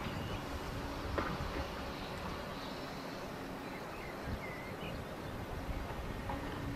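Outdoor ambience: a steady low rumble with a faint hum that comes and goes, and a few small bird chirps around the middle.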